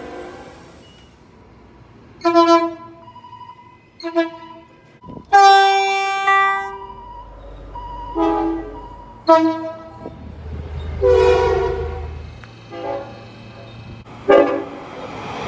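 Train horns sounding a run of blasts, a few short toots and several longer ones, the longest about five seconds in, each a steady multi-note chord. A low rumble of a passing train runs underneath in the middle.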